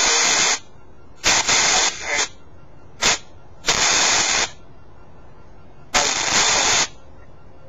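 Spirit box app on a smartphone sweeping up through FM radio frequencies, playing choppy bursts of radio static through the phone's speaker. There are five bursts, each under a second long, with quieter gaps between them; the third is the shortest.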